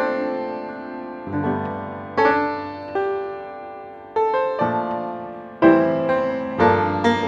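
Background piano music: a slow tune of struck notes and chords, each one fading before the next is played.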